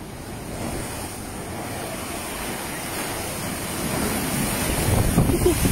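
Storm waves overtopping a sea wall and surging across a flooded promenade. The rush of surf builds steadily louder, and a wave crashes in spray near the end.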